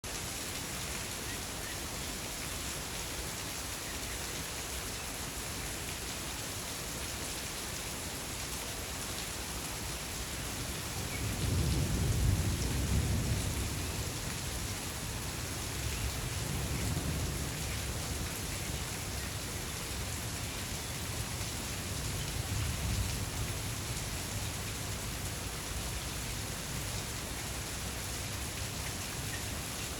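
Steady rain with a low rumble of thunder rolling through about a third of the way in, the loudest part, and weaker rumbles after it.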